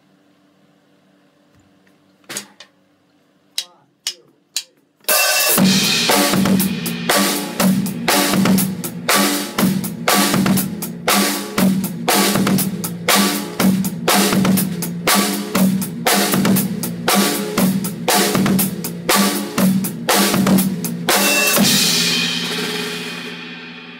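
Four sharp clicks, then a drum kit playing a steady groove at about 120 beats per minute with bass drum, snare and cymbals, the bass drum doubled with a quick heel-up half-press then full-press foot stroke on a single pedal. The playing stops near the end and a cymbal rings out.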